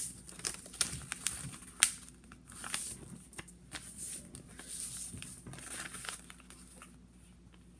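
A sheet of A4 paper being folded and creased by hand: rustling and crinkling with sharp crackles, the sharpest a little under two seconds in, growing fainter near the end.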